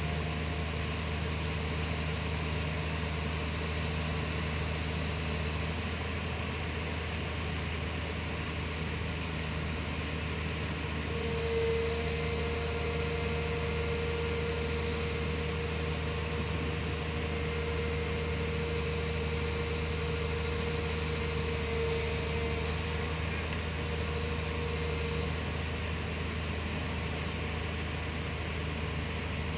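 Watermaster amphibious dredger's diesel engine running steadily as its backhoe arm works in the water. A higher steady whine joins it about a third of the way in and fades out near the end.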